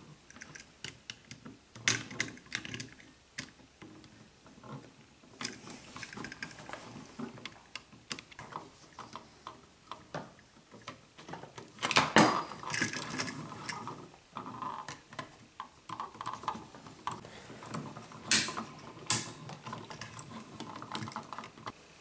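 Irregular small clicks and light knocks as a replacement double light switch is handled and wired: the plastic switch body, its metal mounting strap and screw terminals, and stiff wires tapping and clicking together. A louder cluster of knocks comes about halfway through and another about two-thirds of the way.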